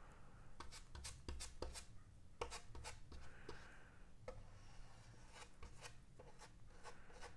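Faint light clicks and rubbing from a small brush stirring epoxy in a plastic cup and spreading it along the wing's wooden center seam, over a low steady hum.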